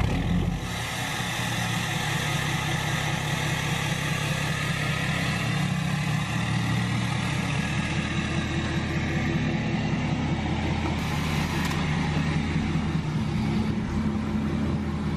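Ford 6.7L Power Stroke V8 turbo-diesel running at a steady idle just after starting, heard at the exhaust tip.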